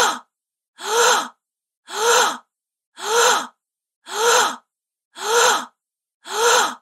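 A woman's short, sharp gasp, the same sound effect repeated identically about once a second, with silence between each gasp.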